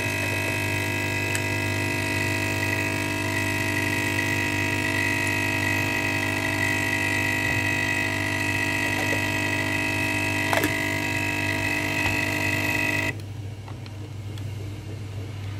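Capsule coffee machine's pump running with a steady buzz while it brews, cutting off suddenly about 13 seconds in as the cup finishes. A quieter low hum carries on after it.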